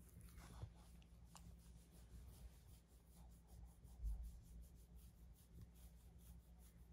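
Near silence with faint rubbing as a hand scratches a Jack Russell terrier's fur, and a soft low bump about four seconds in.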